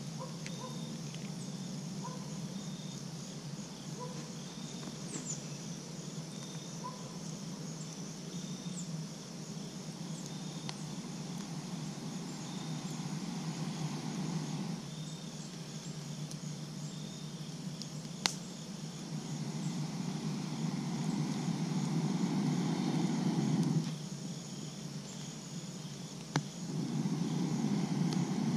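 Breath rushing through a long fire-blowing tube into campfire coals: it swells into one long blow in the second half and another starting near the end. Crickets chirp steadily in the background, and there is a single sharp click about two-thirds through.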